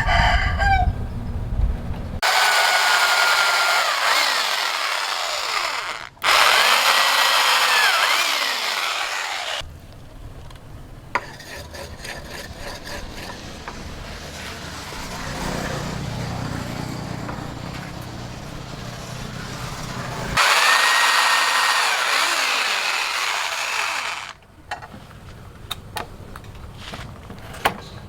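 Power grinder working steel in three runs of a few seconds each, its pitch dipping and rising as it bears on the blade, with quieter stretches between. A rooster crows over it.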